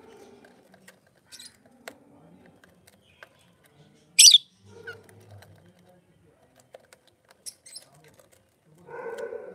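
Pet lovebirds chirping: one sharp, high chirp about four seconds in, with faint chirps and small clicks around it. A lower call with several overtones comes in near the end.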